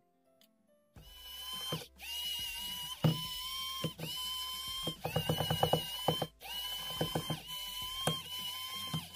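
Electric precision screwdriver whirring in a run of short bursts, each about a second long, as it turns out the phone's midframe screws, with rapid clicking in the middle of the run. It starts about a second in.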